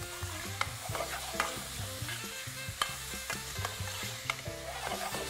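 Diced lamb and onion sizzling as they sear in a hot fry pan, stirred with a metal slotted spoon that clicks and scrapes irregularly against the pan.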